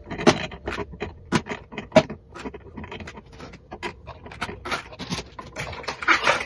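Irregular clicks and light taps of metal tools and parts being handled, as pliers work on the screws and wiring of a ceiling fan's motor housing. Denser rustling and scraping comes in the second half.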